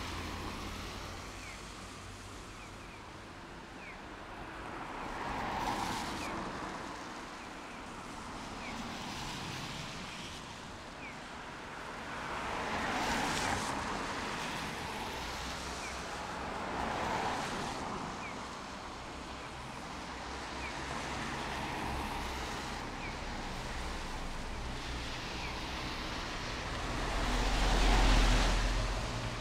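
Street traffic: cars passing one after another, each rising and fading. The loudest and deepest pass comes near the end.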